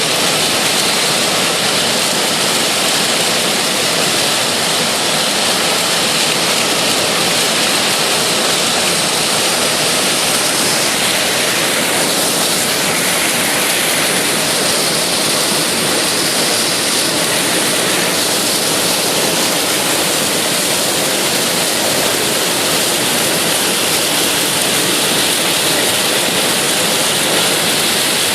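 Massey Ferguson 9690 combine harvester running steadily while harvesting corn, heard as a loud, even rushing hiss.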